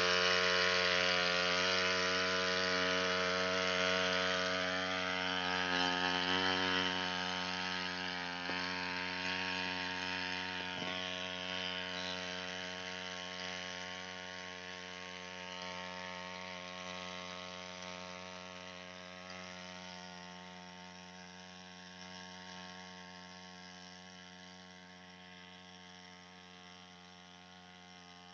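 Two-stroke engine of a backpack power sprayer running steadily at constant speed while spraying, growing gradually fainter as it moves away.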